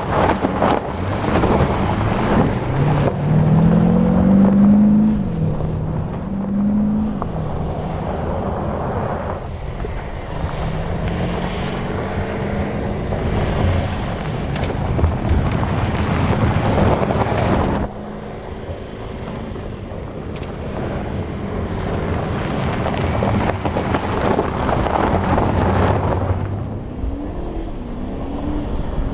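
Audi SQ7 TDI's 4.0-litre V8 diesel pulling off-road, its note rising and falling as it accelerates and eases off, over a steady rush of wind noise on the microphone. The sound drops suddenly about eighteen seconds in.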